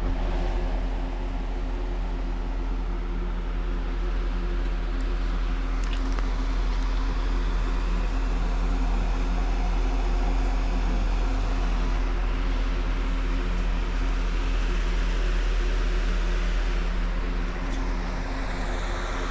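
Steady mechanical hum: a deep drone with several constant tones over it, unchanging throughout, with a faint sweeping sound coming in near the end.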